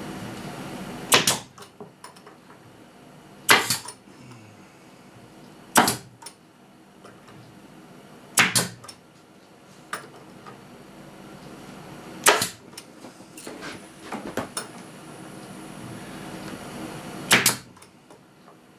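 18-gauge pneumatic brad nailer firing 5/8-inch brads: six sharp shots a few seconds apart, with a few fainter knocks between.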